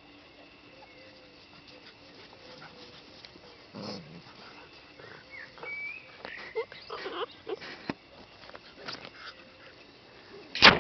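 Puppies at play making short squeaky yips and small growling calls, scattered and irregular, mostly in the second half. A sharp loud knock comes near the end.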